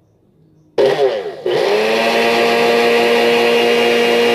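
Nutribullet personal blender's motor starting up with an empty cup, about a second in. It speeds up, sags briefly, then spins up again and runs steadily at one pitch: a first test run to see if it works.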